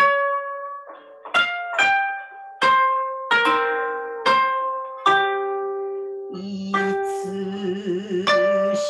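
Koto being played: single plucked notes, each ringing and fading. For the last couple of seconds a steady, wavering lower tone holds beneath fewer plucks.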